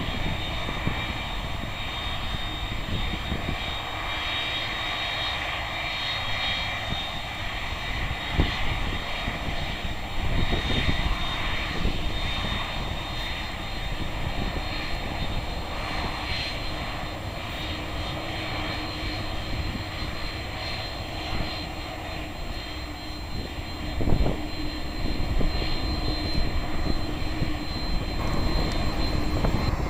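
Airbus A310-308 jet engines running at low taxi power while the airliner rolls slowly along the taxiway: a steady high whine over a low rumble.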